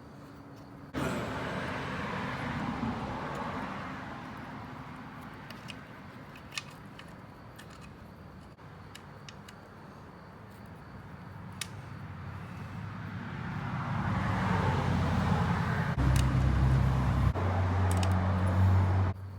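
Road traffic going by: a car passes and fades, then another approaches and grows louder, with a low engine note near the end. A few faint clicks are heard in the middle.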